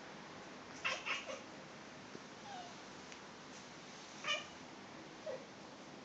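Domestic cat making short chirping meows at a fly on the wall. A quick cluster of two or three calls comes about a second in, then single calls a second or so apart, the loudest a little past four seconds.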